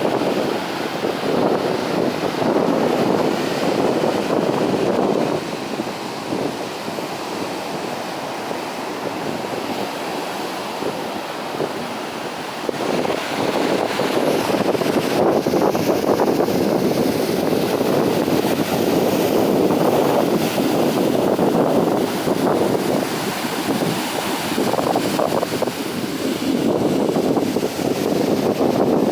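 Sea waves washing, with wind buffeting the microphone; the rush of water and wind swells and eases, growing louder about halfway through.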